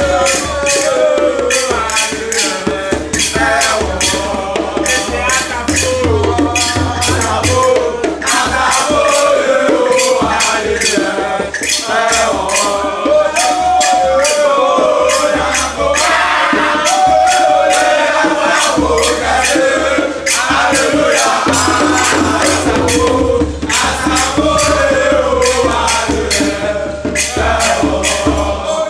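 A group of young voices singing a chant together, backed by hand drums beaten with the palms in a fast, driving rhythm.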